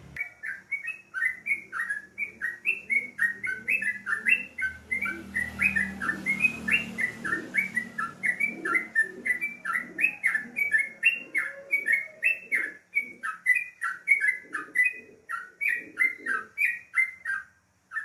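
Sooty-headed bulbul (trucukan) singing vigorously: a rapid, unbroken run of short chirping notes, about three to four a second, that stops just before the end.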